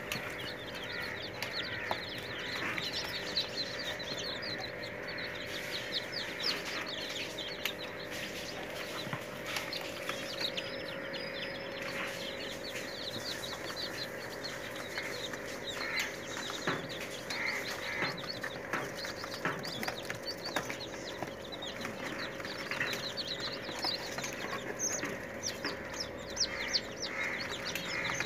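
A flock of young chicken chicks peeping nonstop, many short high chirps overlapping, with a steady low hum underneath.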